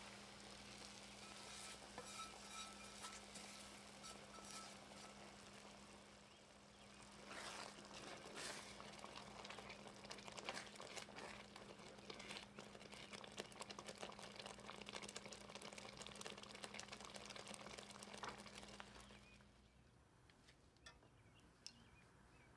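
Faint sizzling and crackling of food frying in a pan. A low steady hum runs underneath, and both stop suddenly near the end.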